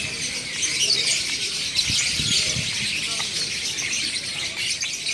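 A dense chorus of many small caged birds chirping and twittering at once, a constant high, flickering chatter.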